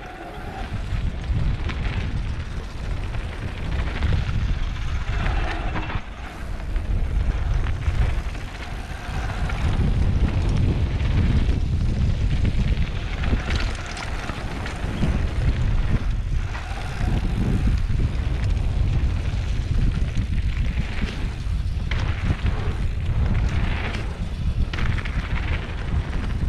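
Wind buffeting the microphone of a camera on a mountain bike riding a fast trail descent. It makes a loud, uneven rumble that swells and eases, with occasional clicks and clatter from the bike over rough ground.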